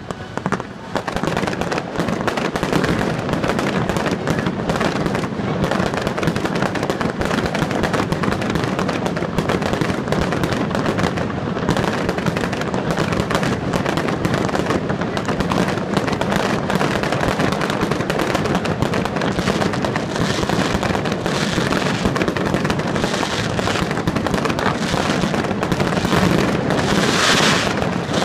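Fireworks display going off: a dense, continuous run of bangs and crackling bursts, with a louder spell of high crackling near the end.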